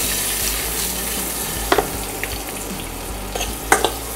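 Oil sizzling steadily in a stainless steel kadai as halved boiled eggs fry with freshly added chilli powder and turmeric. The pan is being stirred, with sharp clicks of the utensil against the steel, once about two seconds in and a few times near the end.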